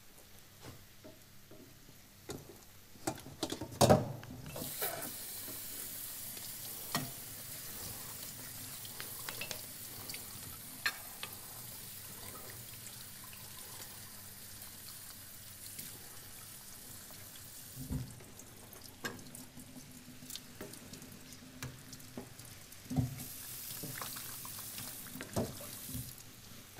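Kitchen work at the stove and sink: a loud knock about four seconds in, then a steady hiss that runs for about ten seconds and comes back briefly near the end, with scattered clicks and clatters of pans and utensils.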